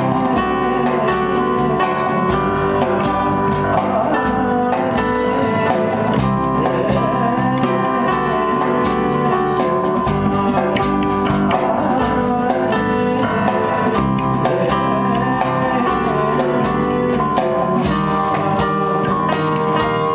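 Small band playing live: acoustic guitar, electric bass and keyboard, with a man singing into a microphone over them.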